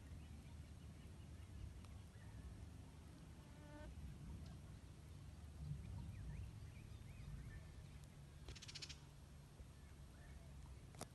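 Faint rural outdoor ambience: a low steady rumble, a few distant bird calls, and a brief insect buzz about eight and a half seconds in.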